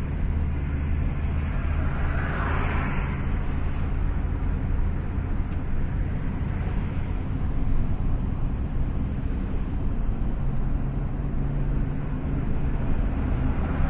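Steady vehicle engine and road drone heard from inside the escort car. A passing vehicle's rush of noise swells and fades about two and a half seconds in.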